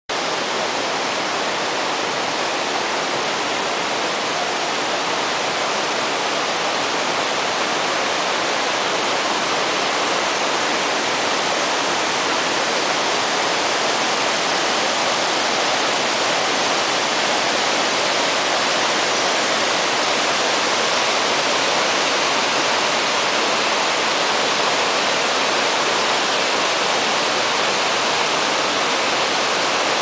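Steady rush of a waterfall and the rocky mountain stream below it: a constant hiss of falling and tumbling water that grows slightly louder as it goes on.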